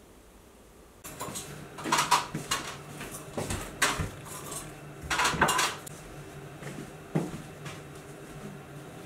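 Kitchenware handled on a counter: glass cups and dishes clinking and knocking. It starts about a second in, with a few louder knocks among lighter clatter.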